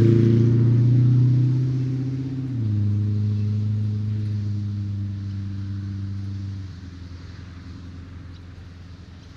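A road vehicle passing by: a steady low engine hum that drops in pitch about two and a half seconds in, then fades and stops, leaving a faint background hiss.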